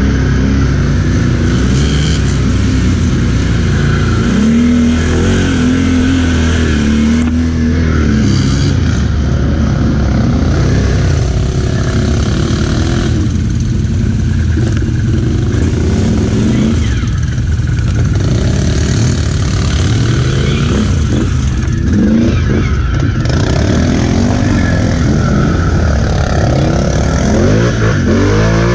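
ATV engine running under load and revving, its pitch repeatedly rising and falling.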